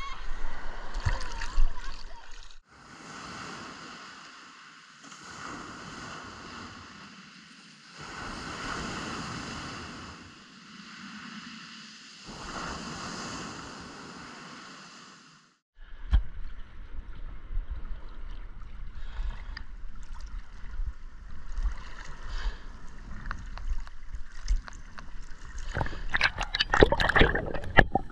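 Sea water splashing and sloshing at the surface, then waves washing in and out in slow swells about every four seconds, then the muffled underwater sound of a dive: a low rumble with many small clicks and knocks, growing louder near the end.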